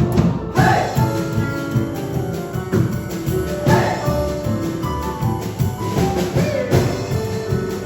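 A live band playing an upbeat tune, with held instrument notes over a busy drum kit and percussion.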